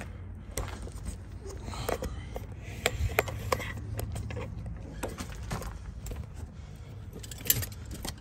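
Gear being handled: scattered light clicks and knocks, a few of them sharp, over a steady low rumble.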